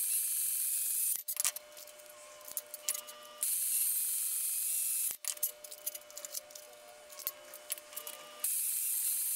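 Cordless Ryobi band saw cutting through flat steel bar: a steady motor whine with a loud hiss of the blade in the metal that comes in three stretches, at the start, around the middle and near the end, with quieter stretches of clicks and ticks in between.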